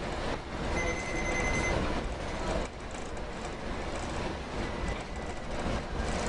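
Steady rumbling ride noise of a moving vehicle, with a brief high steady tone about a second in.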